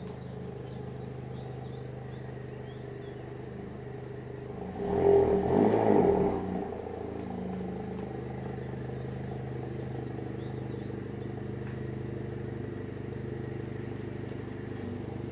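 Volkswagen Jetta (Mk7) engine running at low speed as the car reverses into a garage, steady throughout, with a brief louder surge about five seconds in.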